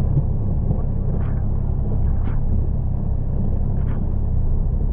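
Steady low rumble of a vehicle being driven, with a few faint short ticks.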